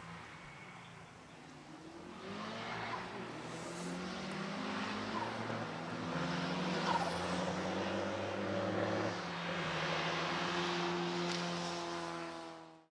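Škoda Fabia autoslalom car's engine revving hard as it accelerates away, its pitch rising and dropping at the gear changes. The sound cuts off abruptly near the end.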